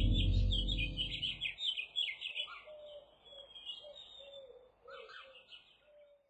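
Birds chirping: a quick run of high chirps that thins out after about two and a half seconds, with a few sparser chirps and short lower notes later. A low ringing tone dies away in the first second and a half.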